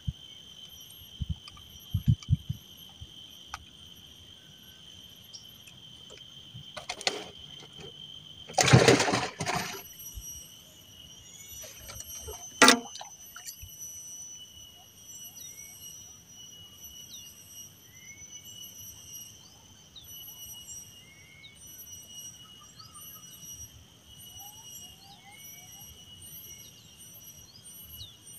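Steady high insect drone with short bird chirps repeating every second or two from about halfway on. Handling noises from an angler working a fish and handline in a wooden canoe: a few light knocks in the first seconds, a loud burst of noise about nine seconds in, and a sharp knock near thirteen seconds.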